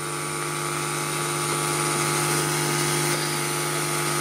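Cassette deck playing the start of an old Klarion C45 tape before the recording begins: a steady hum with several fixed tones over tape hiss, slowly getting louder.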